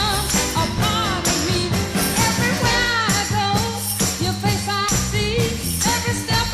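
Women singing with vibrato over band accompaniment with a steady beat, from a vintage swing-style vocal group.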